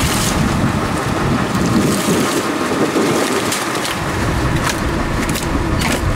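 Wind buffeting the microphone over steady sea and boat noise on a small open fishing boat, with a few light clicks near the end.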